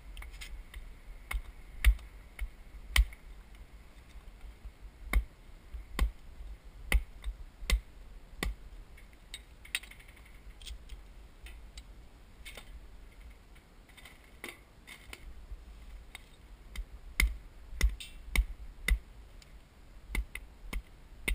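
Pieces of oak wood clacking and knocking against each other as they are handled: irregular sharp clicks, in clusters near the start and towards the end with a quieter stretch between.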